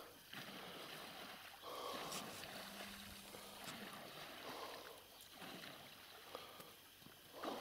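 Faint splashing and swishing of pond water as a long pole is pushed down and worked through it, coming in a few soft swells.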